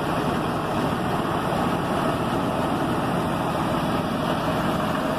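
Fendt 930 Vario tractor's six-cylinder diesel engine idling steadily.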